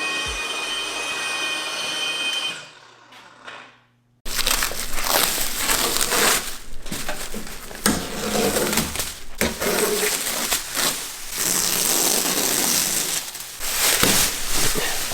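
An electric car polisher runs with a steady high whine, then winds down and stops about two and a half seconds in. After a moment of near silence, a loud, rough, uneven noise starts suddenly about four seconds in and continues.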